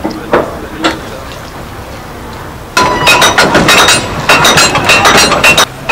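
Hand-cranked geared deck windlass on a Thames sailing barge being wound to hoist the mast, its pawls and gears clicking. A couple of single metallic clicks come near the start, then a rapid clatter of ringing metal clicks from about three seconds in.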